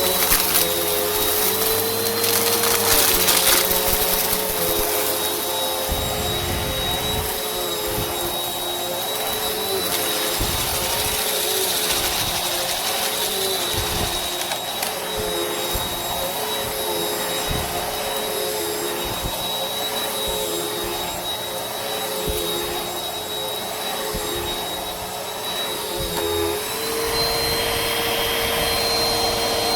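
Vacuum cleaner motor running steadily with a high whine, its pitch sagging slightly under load and rising again near the end. Crackling of debris being sucked up in the first few seconds.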